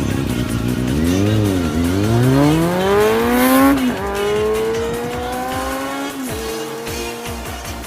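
Kawasaki Balius 250 cc inline-four motorcycle with a Revive monaka-style barrel silencer, accelerating. The revs dip briefly about a second in, then climb steadily, falling sharply at two upshifts around four and six seconds in, after which the engine note holds and fades slightly.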